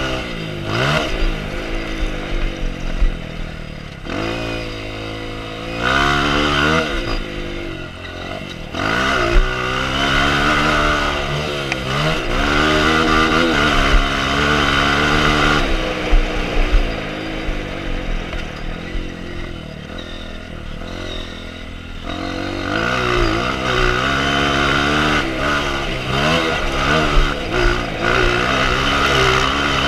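Honda CRF motocross bike's engine, heard from on board, revving hard and dropping off again and again as the rider opens and closes the throttle around the track. The pitch climbs and falls, there is a softer off-throttle stretch in the middle, and there are occasional sharp knocks from the bike over the rough ground.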